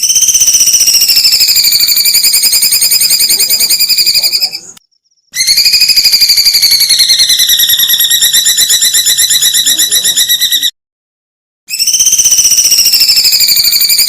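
A caged songbird giving a rapid, buzzy trill of many notes a second, high-pitched and sagging slightly in pitch, in three long bouts of about four to five seconds each separated by short silences.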